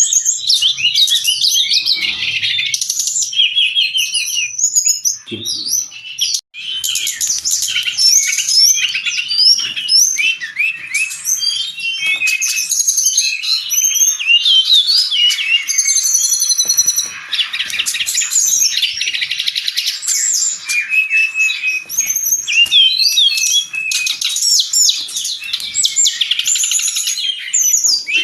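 Brown-chested jungle flycatcher singing continuously: a dense, unbroken stream of rapid chirps, trills and quick whistled sweeps, with one brief break about six seconds in.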